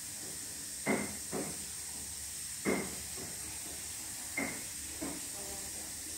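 Footsteps walking slowly, six steps falling in three uneven pairs, over a steady high hiss.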